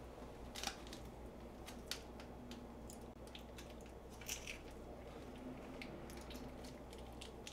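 Faint squishing and crinkling as soft tofu is squeezed out of its plastic pouch into a pot, with a few small clicks and rustles over a low steady hum.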